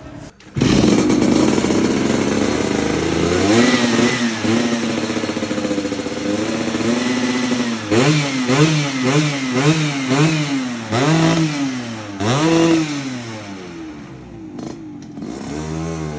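Motorcycle engine with a PTS carburettor, loud, picking up about half a second in and then revved in repeated throttle blips. There are several quick ones in a row midway and a couple of bigger ones, before it settles to a lower, steadier idle near the end. The blips are part of tuning the carburettor's jetting.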